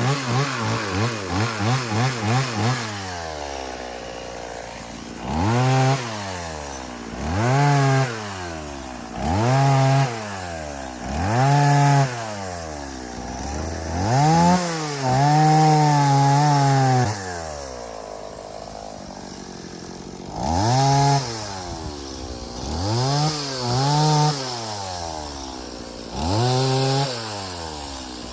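Two-stroke chainsaw cutting up a felled tree. It is blipped quickly a few times, then revved to full throttle again and again for one to two seconds at a time, dropping back to idle between cuts.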